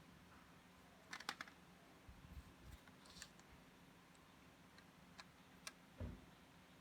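Faint scattered clicks over near silence, with a soft low thump about six seconds in.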